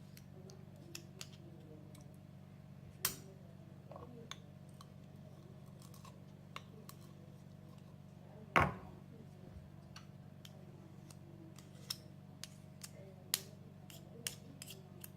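A spoon clicking and tapping against a container as honey is spooned into a remedy mixture: scattered light ticks, with two louder knocks about three seconds in and just past the middle. A faint steady hum lies underneath.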